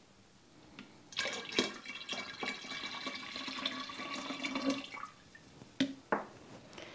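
Fruit punch poured from a plastic measuring pitcher into a glass drink dispenser jar partly full of juice: a steady splashing pour starting about a second in and stopping about five seconds in. Two brief clicks follow near the end.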